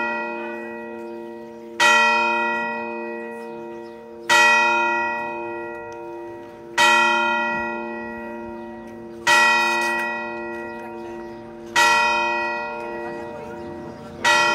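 A single church bell tolling slowly, one stroke about every two and a half seconds, six strokes, each ringing on and fading into the next: the bell rung just before Mass begins, calling people to the celebration.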